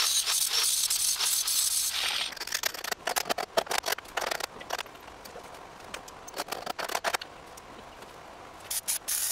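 Metalwork on a steel tube cage: a loud crackling hiss for about the first two seconds, then scattered scrapes and knocks of metal being handled, with crackling again near the end.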